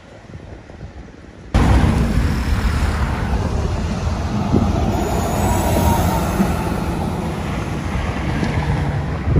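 A MAN 18.350 coach's diesel engine and tyres going past close by: the sound swells as the bus approaches and passes, then eases as it pulls away. For the first second and a half there is a quieter drone from another bus moving off, which breaks off abruptly.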